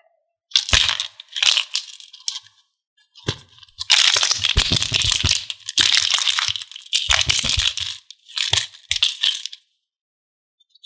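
Small hard pieces clattering and cracking against a container in a string of separate bursts, with dead-silent gaps between some of them; the longest and loudest run is in the middle, and it stops about a second before the end.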